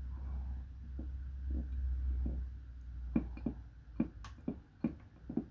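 Light, irregular clicks of steel tweezers on a small capacitor and circuit board as the part is pressed into place, over a low steady hum that fades near the end.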